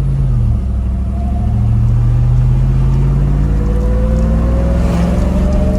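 Supercharged engine running under way, its supercharger whining over the engine's steady drone; the whine rises slowly in pitch from about halfway through as the vehicle picks up speed.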